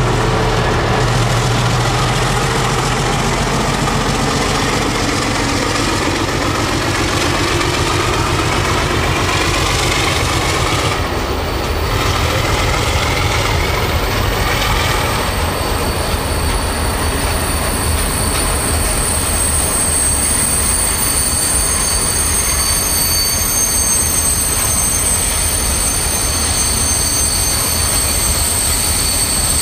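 ALCO DL500C diesel-electric locomotive's V12 engine running as it pulls away, its low drone fading after the first few seconds. A long train of freight boxcars then rolls past, with a steady high wheel squeal on the rails from about halfway.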